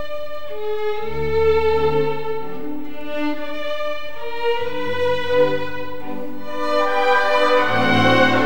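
Slow instrumental background music: long held notes carry a melody over low bass notes that come in about a second in, and it grows fuller and louder near the end.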